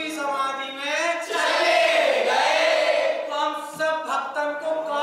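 A group of voices singing together in chorus, with a fuller, louder stretch from about one to three seconds in.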